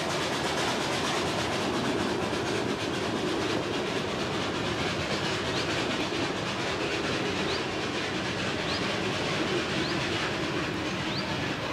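Open passenger cars of the Killesbergbahn, a narrow-gauge park railway, rolling along the track with a steady rumble and clickety-clack of the wheels as the train moves away.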